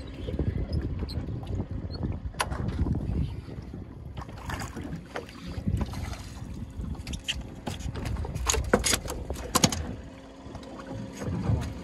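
Low rumbling noise of wind on the microphone and water against a boat's hull, with a few sharp knocks and clatters on the boat. The knocks come thickest near the end.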